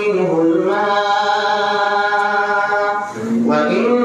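A man's voice chanting a Qur'an verse in melodic recitation: a falling phrase, then one note held for about two seconds, and a short breath near the end before the next phrase begins.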